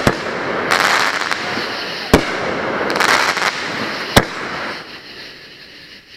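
Consumer firework cake firing its shots: sharp bangs about every two seconds, with bursts of crackling in between. The noise fades away near the end.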